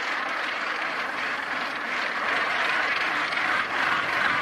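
Dense, steady din of a seabird colony calling all at once, no single call standing out.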